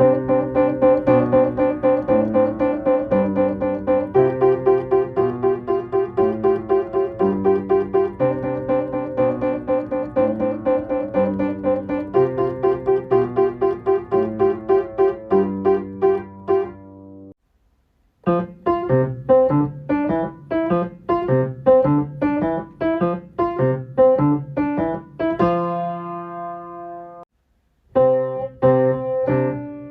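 Piano playing a simple, steady children's play accompaniment: a melody over single bass notes in the left hand. It stops briefly about 17 seconds in and again near the end, then starts up again.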